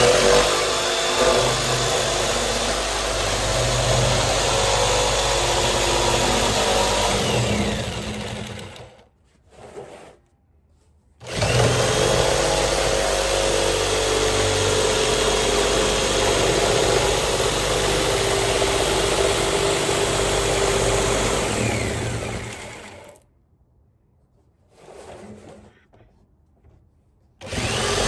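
Jigsaw running as it cuts through the top of a 55-gallon barrel, in long steady runs: about eight seconds, a pause with a brief blip, then about eleven seconds, another pause with a short burst, and it starts again near the end.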